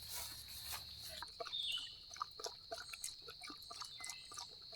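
Steady high-pitched drone of insects, with scattered light clicks and rustles over it.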